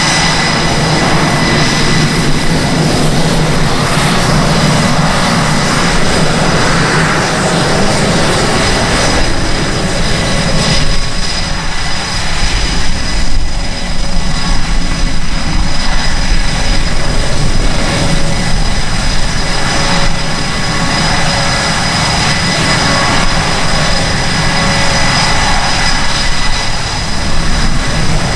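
EA-18G Growler's twin General Electric F414 turbofan jet engines at taxi power: a steady high whine over a heavy rumble. The low rumble grows stronger about a third of the way in, as the jet turns its exhaust nozzles toward the listener.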